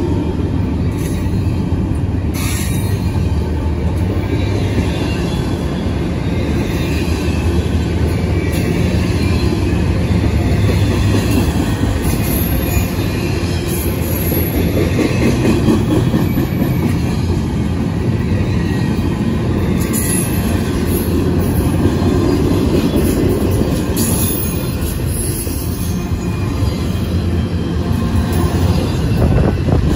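Double-stack intermodal container cars rolling past on jointed steel wheels: a steady loud rumble of wheels on rail, with brief high wheel squeals several times.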